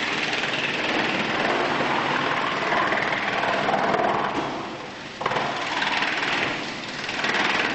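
BX215 wood chipper chipping wood: a dense, grinding noise that swells and eases as pieces are fed through, with a sharp crack about five seconds in.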